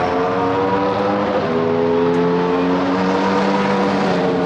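A large motorcycle engine running, its pitch slowly climbing as it is held at steady, rising revs, with a brief dip about one and a half seconds in.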